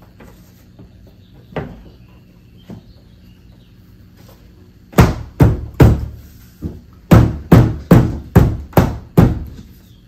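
Palm slapping down along a new window weatherstrip molding on a car door to seat it onto the door. About ten sharp thumps start about halfway in, coming two to three a second, after a couple of lighter knocks.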